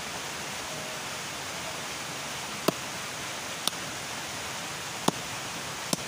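Machete chopping into an earth mound by a hole: four sharp chops in the second half, about a second apart, over a steady hiss.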